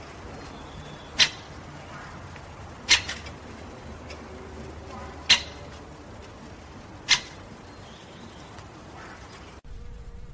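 Relaxing water-sounds ambience: a steady low hiss broken by four sharp, loud clicks spaced about two seconds apart. Near the end the background cuts abruptly to a quieter bed.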